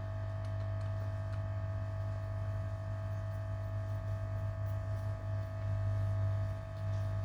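Steady electrical hum with a constant higher tone above it, and a few faint clicks.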